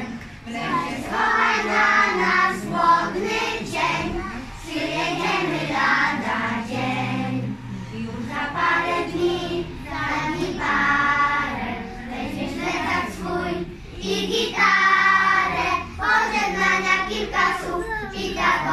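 A group of young kindergarten children singing a song together in unison, over a musical accompaniment.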